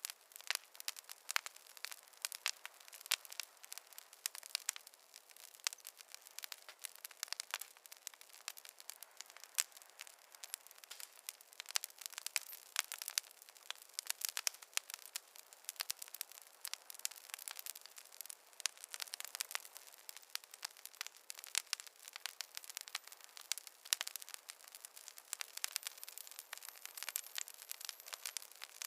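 Fireplace fire crackling steadily: a dense, irregular run of small sharp pops and snaps over a faint hiss, with no low rumble.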